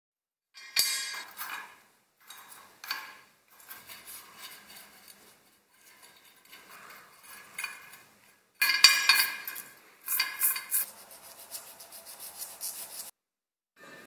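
Small wire brush scrubbing the coiled resistance-wire heating element of an old fan heater, the metal coils scraping and rattling. It comes in several separate bursts, loudest about two-thirds of the way in.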